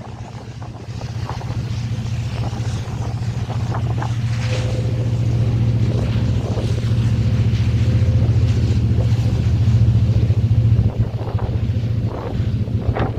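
Diesel-electric freight locomotives, led by a Union Pacific SD70ACE, passing close by: a steady low engine rumble that builds to its loudest about ten seconds in, then drops off as the locomotives go by and freight cars follow. Wind gusts buffet the microphone near the start and end.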